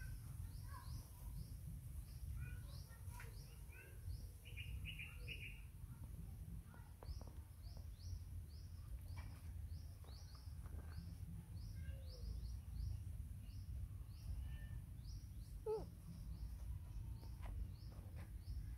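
Small birds chirping: a short high chirp repeated a few times a second, with other scattered twittering calls, over a steady low rumble.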